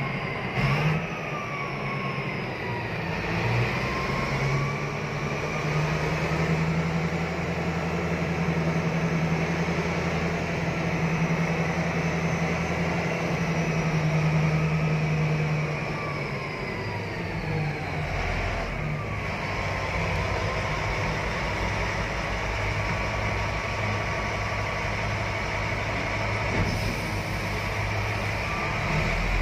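Caterpillar 777 mining haul truck's diesel engine running under way, heard from inside the cab: a steady low drone with a high whine over it that slowly rises and falls with engine speed, easing off a little over halfway through.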